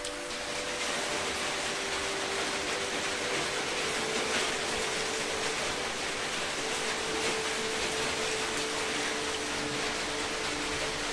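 Steady rain, a constant even hiss of rainfall with water dripping off clay roof tiles, with a few faint sustained tones underneath.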